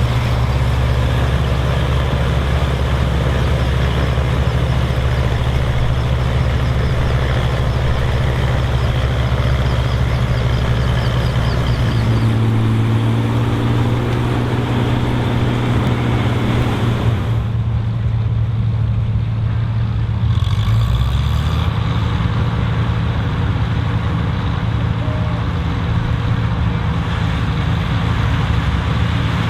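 Vintage combine harvester engine running steadily under load. Its note changes about 12 seconds in, goes duller for a few seconds around 18 to 20 seconds, then returns.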